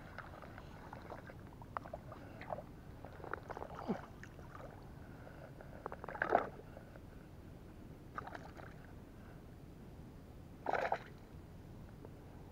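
Scattered short rustles and splashes as a hooked peacock bass is dragged up through waterside weeds and handled. The loudest bursts come about six seconds in and again near eleven seconds.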